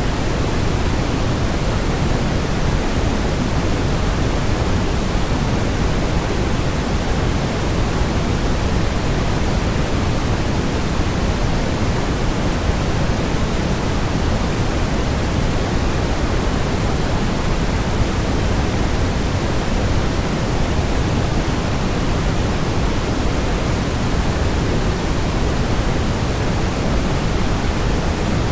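Steady waterfall white noise: an even, unchanging rush of falling water, heavier in the low end like pink noise.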